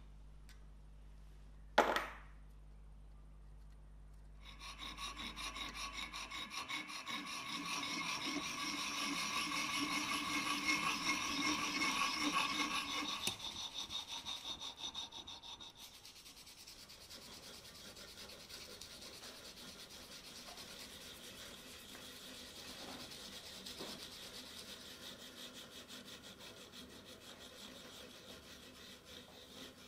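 Needle file rasping back and forth on a small metal bar clamped in a vise, in quick strokes, louder for several seconds and then softer. A single sharp knock about two seconds in.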